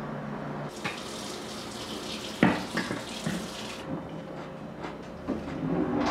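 Kitchen tap running for about three seconds, with metal utensils clanking as someone rummages through a cutlery drawer. The loudest clank comes about two and a half seconds in, and there is more rattling near the end.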